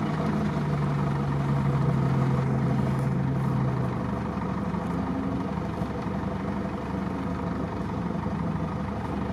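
Off-road 4x4 engines running slowly in a convoy. A steady low engine drone whose clearest tone drops away about four seconds in, leaving a lower, rougher running sound.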